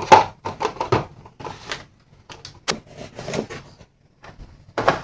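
Small cardboard boxes being handled: one set down on a wooden table and another pulled out of a cardboard shipping box, with irregular knocks and scraping rustles, the sharpest knocks at the start and just before the end.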